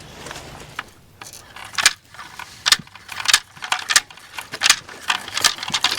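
Mingo Marker spraying marking paint onto logs from its aerosol can: a run of short, quick hisses, about two a second.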